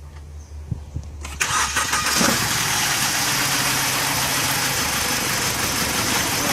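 2007 BMW E90's engine cranked by the starter and catching about two seconds in, then settling into a steady idle. It is running on a dead ignition coil on cylinder 1, which the mechanic finds to be the cause of its misfire.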